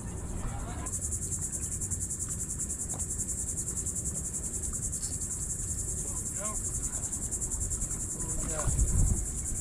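A steady, high-pitched insect chorus, a fast even buzz that starts about a second in, over a low rumble.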